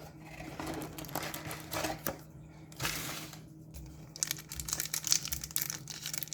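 Hockey card pack wrapper being torn open and crinkled by hand: irregular crackling and rustling that grows busier and louder in the second half.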